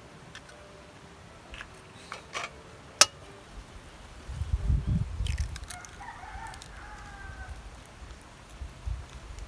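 Eggs cracked against a metal wok: a few light taps and one sharp click about three seconds in. A rooster crows once in the background about six seconds in.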